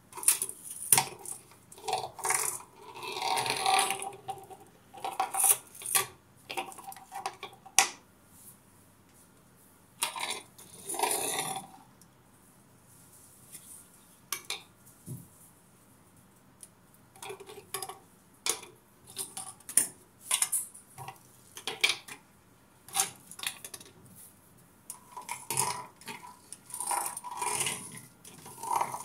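Small toy fighter jets being picked up and set down on a hard surface: irregular clicks, taps and short bursts of clatter with quiet gaps between.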